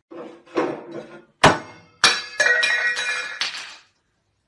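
Hard objects clinking and knocking, glassy in tone: a scuffle of small knocks, one sharp knock about a second and a half in, then a run of ringing clinks lasting nearly two seconds.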